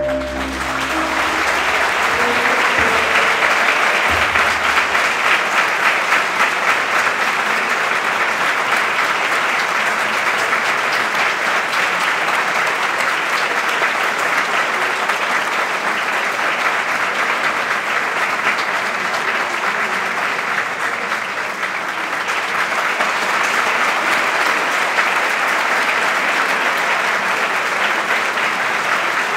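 Audience applauding steadily and at length. The last held bandoneon notes die away during the first couple of seconds as the clapping swells.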